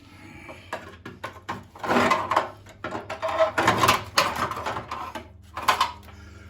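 Irregular clattering knocks and scrapes of parts being worked loose and handled, some strokes much louder than others.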